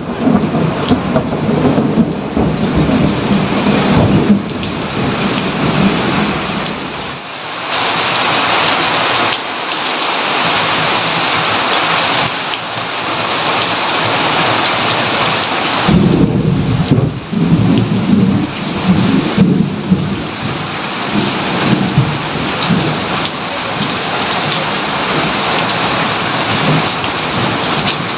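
Steady heavy rain with thunder: a rumble of thunder in the first few seconds, rain alone for a stretch, then another long thunder rumble from about the middle on.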